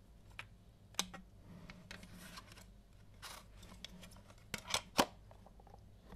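Clear plastic Maxell UR 90 cassette shell and its hard plastic case handled by hand: a few sharp plastic clicks and taps with soft rubbing between them, and a quick run of three clicks near the end, the last the loudest.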